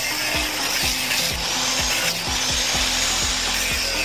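Harsh, continuous cutting noise from a tool working through the steel top of an LG linear refrigerator compressor's shell, over background music with a steady beat of about two thumps a second.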